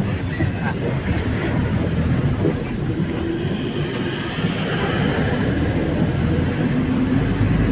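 Steady low rumble of a moving town bus, its engine and road noise heard from inside the bus.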